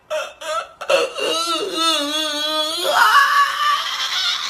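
A man crying out in an exaggerated, wavering wail, after a few short broken sobs. It ends in a breathier, rasping sob.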